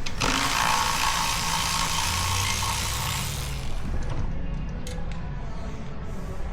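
Power driver running a screw into the clutch basket, spinning steadily for about three and a half seconds and then stopping, followed by a few light clicks.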